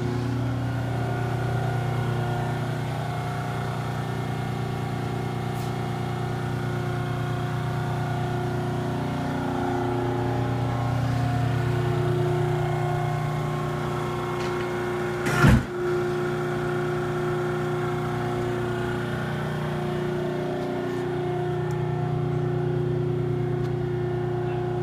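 Large die-cutting press sitting with its hydraulic pump motor running, a steady mechanical hum with a few held tones. A single loud, sharp thump comes a little past halfway.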